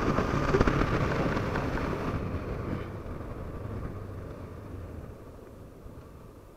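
Honda CB500F parallel-twin engine and wind rush as the motorcycle slows, the noise fading steadily; the wind hiss drops away about two seconds in and the engine note falls quiet near the end.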